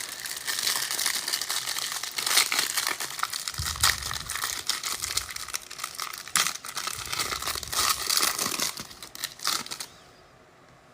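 Plastic wrapping of a trading card hanger pack being crinkled and torn open by hand, a dense, irregular crackle that stops about ten seconds in.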